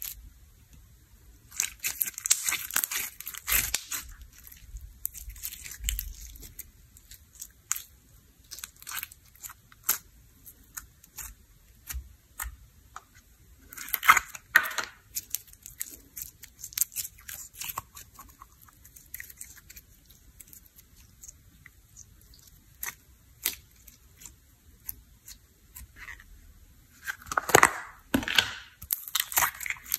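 Hands stretching, pulling and squishing sticky clear glitter slime: irregular sticky crackles, clicks and small pops. These come in louder clusters a few seconds in, around the middle and near the end, with quieter stretches between them.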